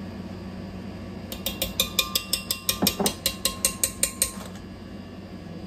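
A utensil rapidly clinking against the rim of a jar, about five sharp taps a second for some three seconds, knocking thick mole paste off into the blender.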